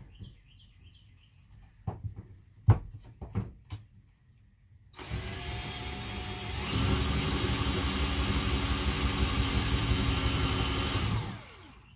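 A few short knocks, then a cordless drill running steadily for about six seconds, getting louder about a second and a half after it starts and then spinning down with a falling pitch near the end. The drill is fitted with a bit that is not meant for metal.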